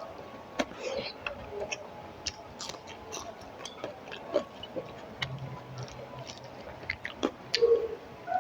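Close-up eating sounds of a person chewing a mouthful of rice and fried spinach: irregular soft wet clicks and smacks, a few sharper ones near the end.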